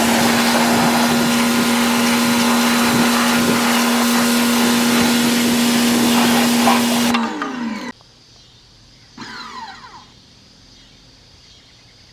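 Pressure washer spraying with a loud hiss over its steady motor hum; about seven seconds in the motor winds down and stops, the washer quitting on him. A short falling chirp follows about nine seconds in.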